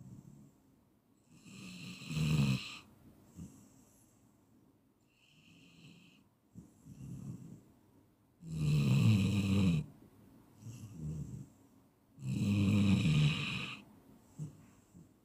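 Dog snoring in its sleep: three loud snores about two, nine and thirteen seconds in, with softer snoring breaths and faint high whistles between them.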